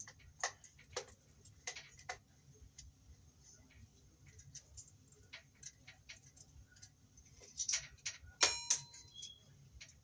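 Irregular small clicks and ticks of a screwdriver on the terminal screws of a pull-chain light fixture as the wires are worked off them, with a denser run of clicks and a short ringing metallic clink near the end.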